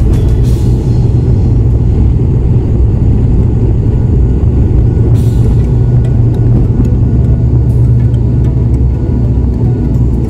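Airliner engines at takeoff power heard from inside the passenger cabin: a loud, steady low rumble, with light clicks and rattles from the cabin over it.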